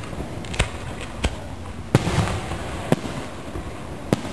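Aerial fireworks shells bursting in the sky: about five sharp bangs at irregular intervals, the loudest about two seconds in and followed by a brief echo.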